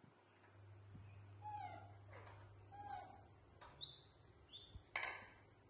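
Baby macaques calling: two falling calls, then a quick run of short, high-pitched squeaks. A sharp click near the end.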